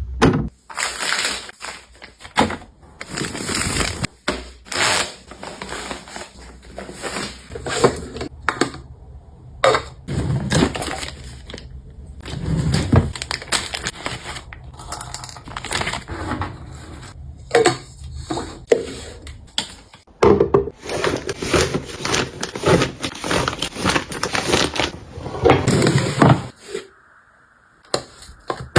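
Plastic packaging and toiletry containers being handled: crinkling and rustling, with frequent knocks and clicks as items are picked up and set down.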